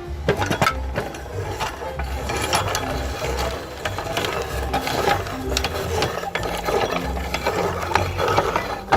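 Meat grinder crushing candy: a dense, irregular run of cracks and clicks.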